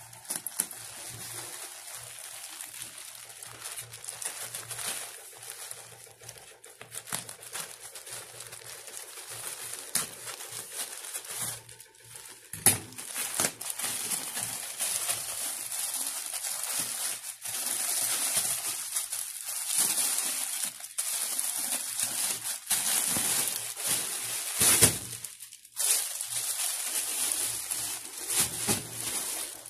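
Plastic packaging crinkling and rustling as a black plastic courier mailer bag is cut and torn open by hand and the clear plastic polybags inside are pulled out, with sharp crackles throughout and a brief lull twice.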